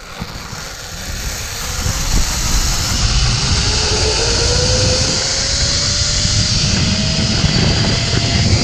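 Zip line trolley's pulley wheels running along the steel cable: a loud whirring whine that slowly rises in pitch as the rider gathers speed, building over the first few seconds and then holding. Wind buffets the microphone underneath.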